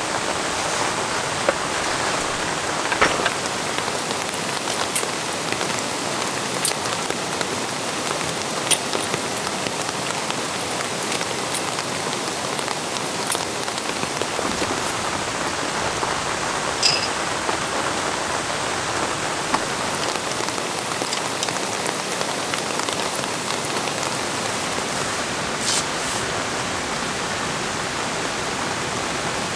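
Steady rain falling, an even hiss with a few short, sharp clicks scattered through it.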